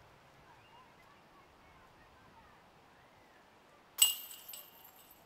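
Faint birdsong, then about four seconds in a disc hits the chains of a disc golf basket with a sudden metallic clank and a brief jingling ring.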